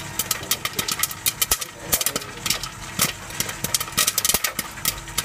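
Popcorn kernels popping in a vending machine's stainless steel popping kettle: irregular sharp pops several times a second, growing denser toward the end, over a steady mechanical hum from the machine.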